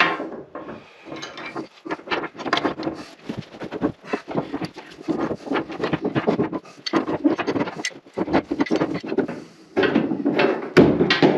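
Irregular scraping and clattering of hand work, in quick uneven strokes broken by short pauses, loudest about ten seconds in.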